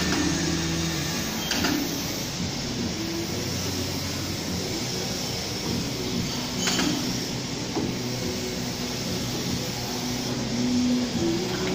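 Steady factory machinery noise with a low hum that shifts in pitch, and a few sharp metallic clicks while a roller is fitted into a crusher.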